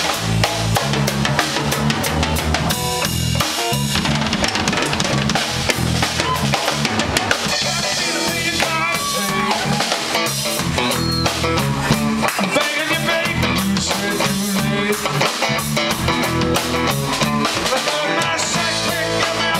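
Live rock band playing: a Telecaster-style electric guitar and a drum kit with steady snare and bass-drum beats under low bass notes, and a man singing at the microphone.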